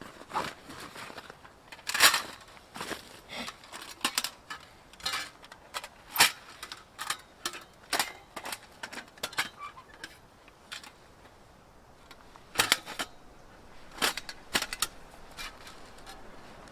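Metal parts of a small portable wood stove being handled and fitted together: irregular sharp clicks and clinks, with a lull of about two seconds past the middle.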